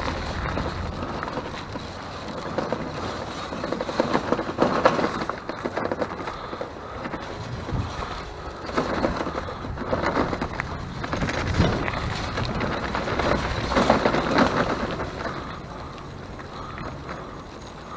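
Bicycle riding noise: rattling and rumbling from the bike and road, swelling in several surges and easing off near the end.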